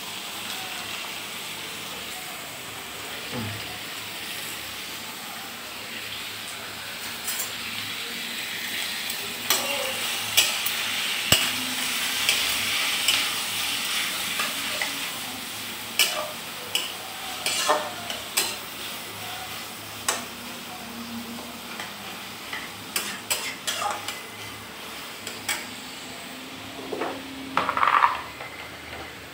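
Sliced onions sizzling in butter in a steel kadai, stirred with a utensil that scrapes and clinks against the pan. The clinks come thick and irregular from about a third of the way in, with a louder flurry near the end.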